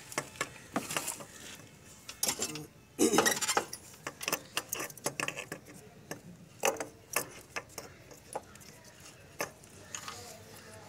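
Metal clinks, taps and knocks as a Kinetic Honda scooter's carburettor is handled and worked into place against the engine's intake manifold and frame, with a longer, louder clatter about three seconds in.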